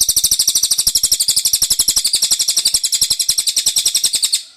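Cililin bird singing a long, rapid trill of sharp high chips, about a dozen a second, evenly spaced, that stops suddenly near the end.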